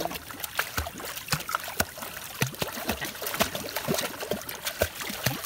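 Water splashing and trickling as a small Shih Tzu is dunked and washed by hand in a shallow concrete water channel, with many quick, irregular splashes.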